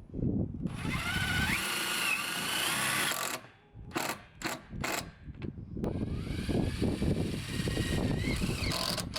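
Cordless drill running in two long bursts with short blips between, its motor whine rising in pitch as it drives screws.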